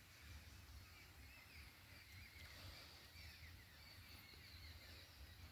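Near silence: faint outdoor ambience with a low rumble and faint bird chirps.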